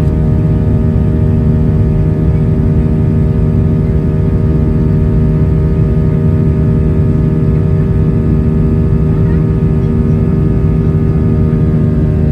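Boeing 737-800's CFM56-7B turbofan engines at high thrust during the climb-out after takeoff, heard inside the cabin beside the engine: a steady, loud rumble with several steady humming tones over it.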